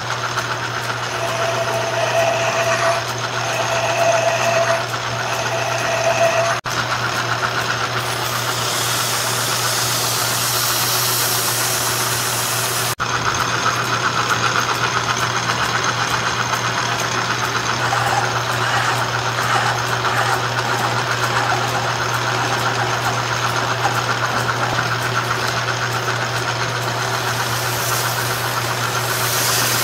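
Lathe running with a steady low motor hum as it turns a poplar dowel into a handle. The cutting tool gives three short whines in the first few seconds, and later sandpaper hisses against the spinning wood.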